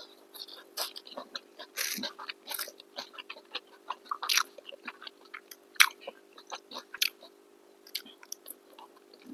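Close-up eating sounds: people chewing and biting into chicken biryani and kebabs, with irregular wet smacks and small crunches.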